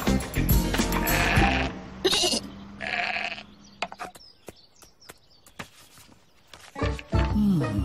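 Cartoon sheep bleating over background music, with calls about a second in and again about three seconds in. A quieter stretch with faint ticks follows, and the music comes back about seven seconds in.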